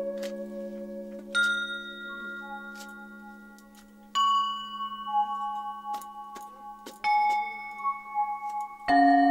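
Slow background music of ringing bell-like tones: a new chord is struck four times, each one sustaining and slowly fading over a low held drone.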